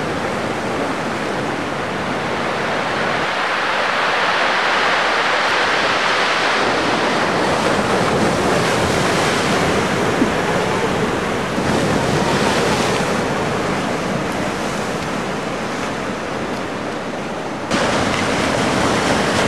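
Ocean surf rushing and breaking in a continuous wash, with some wind on the microphone; the rush steps up suddenly near the end.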